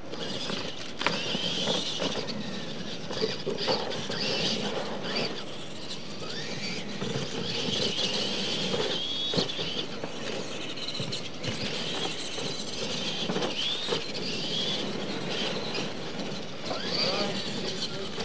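Electric R/C monster trucks racing on dirt: a high-pitched motor and gear whine that rises and falls with the throttle, with sharp knocks now and then.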